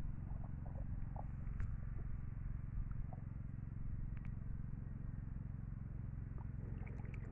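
A small engine running steadily at an even low pitch, with a few faint light ticks over it.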